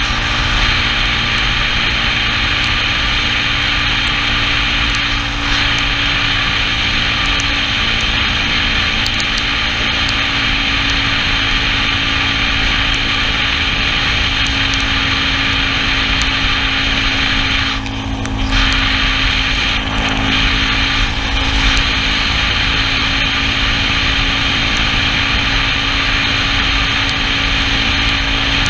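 Yamaha Cygnus scooter cruising at steady speed: a constant engine drone under a loud rush of wind over the camera microphone and tyre hiss on the wet road. The rushing noise drops out briefly about two-thirds of the way through.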